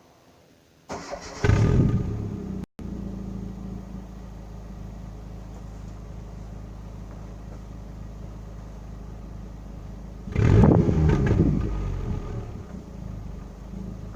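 Hyundai Accent with an aftermarket Bosal exhaust starting up: the engine cranks and catches about a second in, then idles steadily. About ten seconds in it is revved once and drops back to idle.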